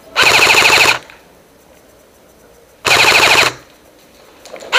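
Airsoft rifle firing full-auto bursts close to the microphone: three rapid rattling bursts, each under a second long, one near the start, one about three seconds in, and one beginning near the end.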